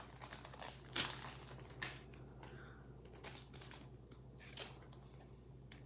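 Pokémon trading cards being handled, with a few short, soft rustles and flicks spread over several seconds.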